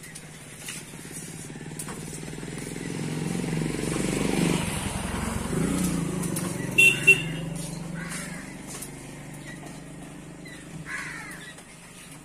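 A motorcycle engine passing on the street, growing louder toward the middle and then fading away, with two short high beeps about seven seconds in.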